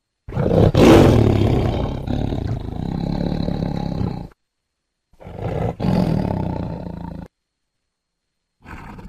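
Tiger roaring: one long roar of about four seconds, then after a gap of dead silence a shorter roar of about two seconds, with another starting near the end.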